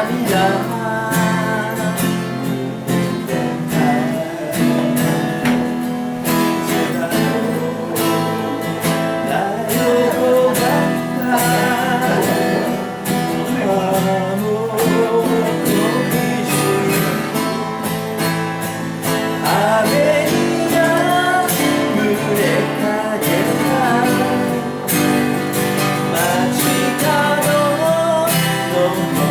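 Acoustic guitar strummed steadily with a voice singing along: a Japanese folk song played and sung live by one performer.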